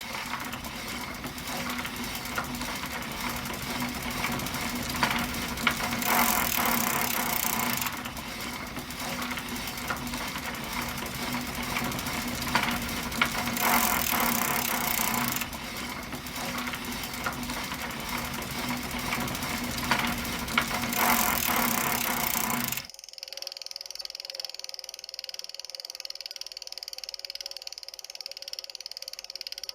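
A bicycle being ridden: steady mechanical rattling and whirring from the drivetrain and wheels, swelling louder three times. About 23 seconds in it changes to a quieter, thinner sound.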